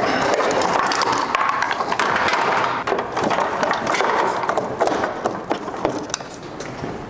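BMW E30 engine wiring harness being dragged out of the car: a continuous scraping and rustling of the wire loom and its plastic connectors against the body, with many small clicks and knocks, getting quieter near the end.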